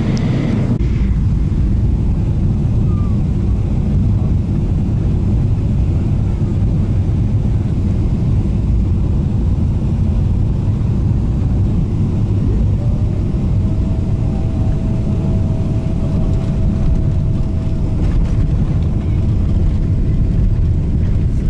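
Steady loud rumble of an airliner's engines and airflow, heard inside the cabin as the plane lands and rolls out on the runway. A steady high whine sounds for about five seconds past the middle.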